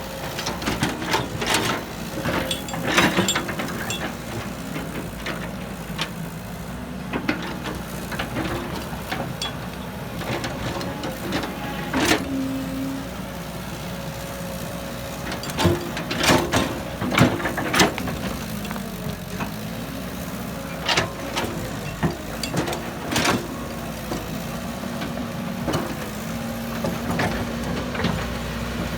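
Excavator's diesel engine running steadily, its pitch rising a little about two-thirds of the way through, with repeated sharp clanks and knocks, several in quick succession about halfway through.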